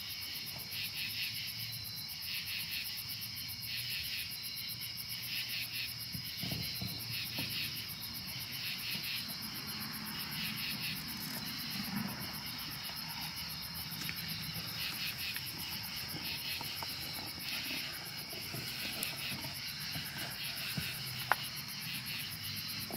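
Steady chorus of night insects, crickets, trilling high and pulsing in rhythmic clusters. One short sharp click comes near the end.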